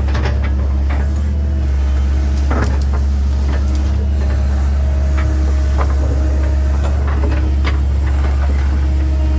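1997 Link-Belt 2700 excavator's diesel engine running steadily, with sharp clanks and knocks every second or two.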